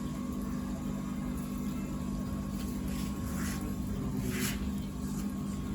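Homemade metal-cutting band saw running with a steady motor hum. Two short hissing sounds come about three and a half and four and a half seconds in.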